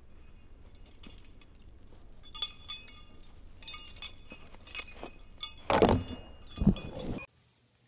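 A dog's collar tags jingling and clinking as it runs, over a steady low outdoor rumble. Two loud thumps come close to the microphone near the end, then the sound cuts off suddenly.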